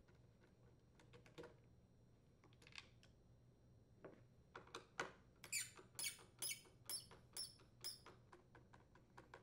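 Screw squeaking as a Torx screwdriver twists it out of a leaf blower's plastic engine cover, in short high squeaks about two a second, starting about halfway through after a couple of faint clicks.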